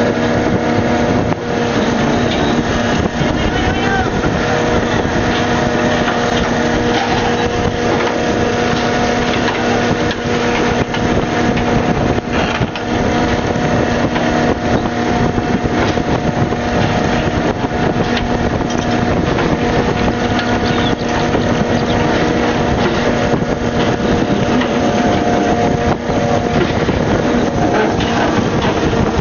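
Fishing boat's engine and deck machinery running with a steady, unchanging hum over a constant wash of noise.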